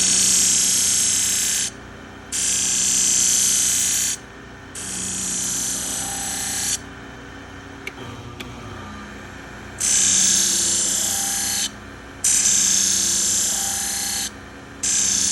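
Knife blade held against the spinning plate of a Hira-To motorized flat hone for a polish, in a series of hissing strokes about two seconds each, with a pause in the middle. The hone's motor hums steadily underneath.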